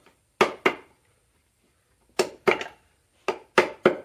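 Hammer blows on a wooden stick, knocking a piston out of a Kubota V2203 diesel engine block. Sharp knocks come in short groups, two, then three, then a quicker steady run near the end.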